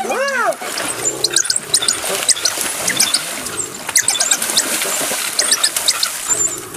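African wild dogs twittering: many short, high-pitched chirping calls in quick, irregular series. Right at the start comes one louder squeal, about half a second long, that rises and then falls.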